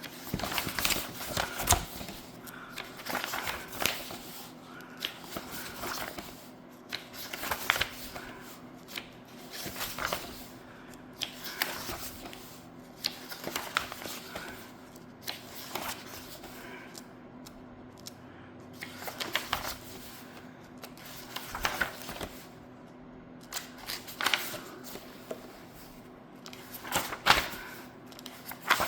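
Paper pages of a coloring book being turned one after another, a page-flip rustle every second or two.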